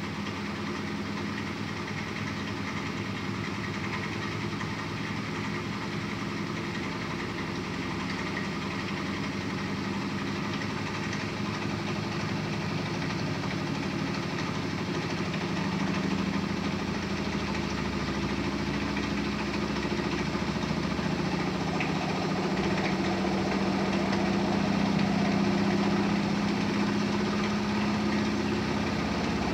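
Miele W 2597 front-loading washing machine in the intermediate spin of a cottons 75°C programme: a steady machine hum that gradually grows louder, its pitch edging up in the second half.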